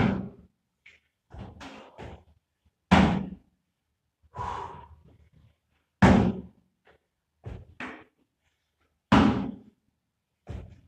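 Box jumps onto a plyo box: feet landing on the box with a loud thud about every three seconds, four times, with softer footfalls between as the athlete steps back down.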